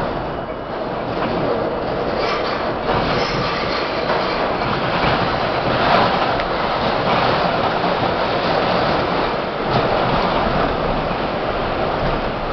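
R-32 subway car running through the tunnel, heard from inside the train: a steady, loud rumble and rattle of wheels on rail, with a few sharp clicks over the rail joints.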